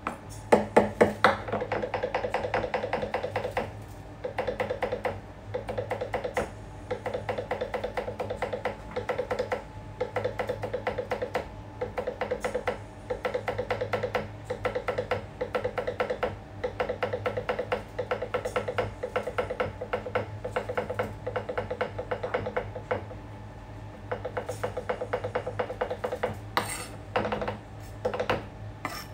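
Japanese kitchen knife rapidly mincing orange zest on a plastic cutting board: fast, even chopping strokes in runs of a second or two, broken by short pauses as the pile is gathered.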